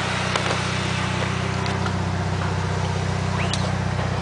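1995 Mitsubishi Eclipse RS's naturally aspirated four-cylinder engine idling steadily, with a couple of faint ticks.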